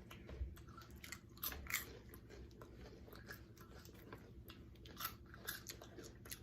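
Faint, irregular crunching of someone biting and chewing chocolate Ding Dong-flavoured popcorn.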